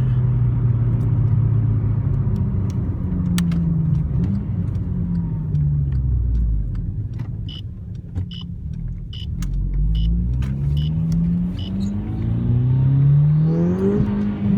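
A VW MK6 Golf GTI's turbocharged 2.0-litre four-cylinder heard from inside the cabin while driving. The engine pitch climbs and drops back several times as it pulls through the gears, with a run of regular ticks about twice a second in the middle. The owner is unsure whether its sound points to a failing turbo or an intake leak.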